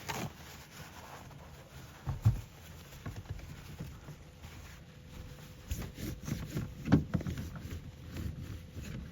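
Scattered knocks, bumps and rustles of gear being handled and moved about, with one thump about two seconds in and the loudest knocks around seven seconds in; a faint steady hum runs underneath.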